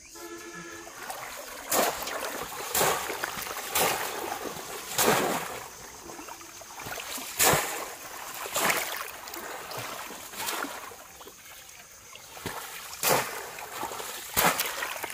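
Bamboo polo fish trap being plunged into and lifted out of shallow river water again and again: a splash every one to two seconds, with water streaming back out through the trap's slats between the strokes.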